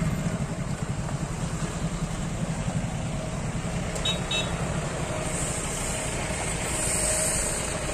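Car engines running as vehicles creep along a street at low speed, a steady low rumble. Two short, high beeps sound about four seconds in.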